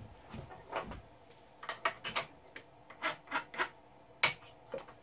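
Scattered small clicks and taps of hand work at a benchtop mini mill's spindle as the cutting tool is taken out, with one sharper knock a little past four seconds in.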